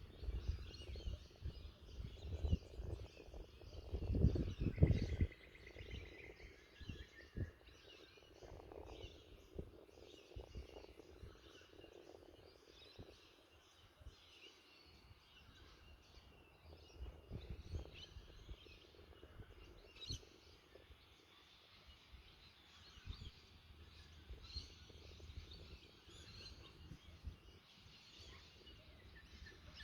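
Wind gusting over the microphone in low rumbles, strongest about four to five seconds in, with birds chirping and calling throughout.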